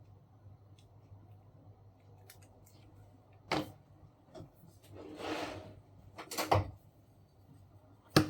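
Small objects being handled on a workbench: a few sharp knocks and clicks, with a short rustling scrape in the middle.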